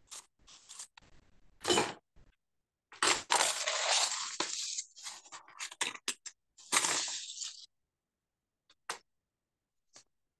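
A wooden ruler and paper being handled on a desk: irregular bursts of scraping and rubbing, loudest in the middle, then two short clicks near the end.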